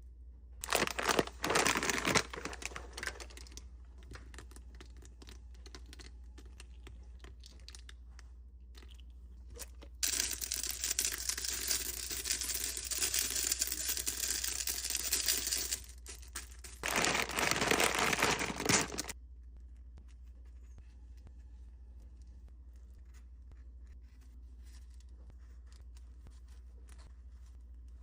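Three stretches of crinkling, tearing noise: the first about a second in, a longer one from about ten seconds, and a short one just after it. A low steady hum runs underneath.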